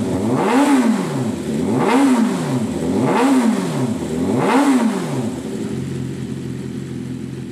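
BMW M1000RR's inline-four engine breathing through an Austin Racing titanium full exhaust system, revved in four quick blips about 1.3 s apart, each note rising and falling back. About five and a half seconds in, it drops back to a steady idle.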